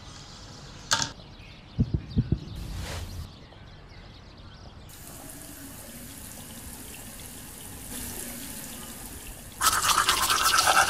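A few soft knocks and a steady hiss, then, near the end, a manual toothbrush scrubbing teeth in rapid, rasping back-and-forth strokes.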